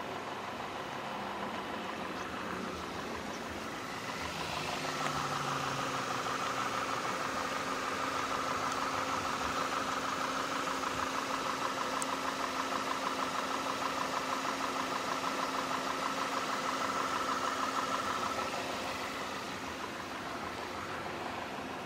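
2012 Volkswagen Passat's 1.8-litre TSI inline-four engine idling steadily. About five seconds in, it gets a little louder and a steady higher whine joins it; both fall away near the end.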